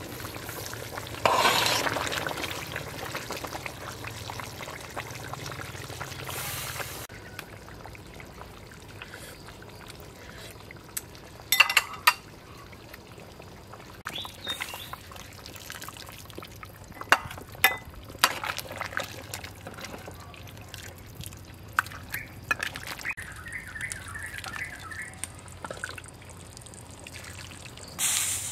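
Beef soup boiling in a metal pot: a sudden loud hiss of bubbling about a second in that fades over several seconds. Later a metal ladle stirs and clinks against the pot a few times, and near the end soup pours from the ladle into a bowl.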